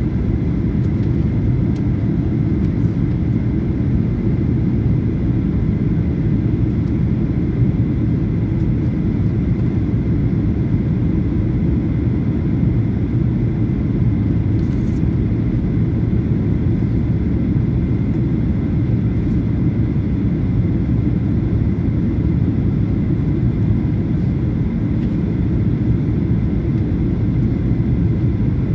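Steady cabin noise of a Boeing 737-800 in flight, heard from a window seat: the even drone of its CFM56 turbofan engines and airflow over the fuselage, deep and constant, with a faint high steady tone above it.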